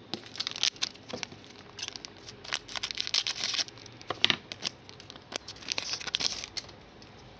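Foil wrapper of a Donruss trading-card pack crinkling and being torn open by hand, in short rustling bursts with sharp clicks of the cards and packs being handled. The loudest click comes a little after four seconds in.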